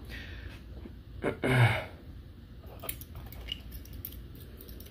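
Faint small clicks and scrapes of hands working a feeler gauge under the valve rocker of a GY6 125cc scooter engine, checking a valve clearance that is set slightly too tight. A brief low voice sound comes about a second and a half in.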